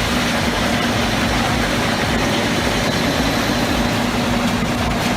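Heavy diesel engine of a large mobile wood chipper running steadily with a constant low hum.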